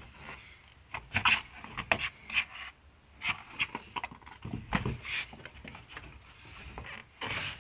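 A pet behind a flimsy closet door pawing and pushing at it, the door scuffing and knocking in short irregular bursts.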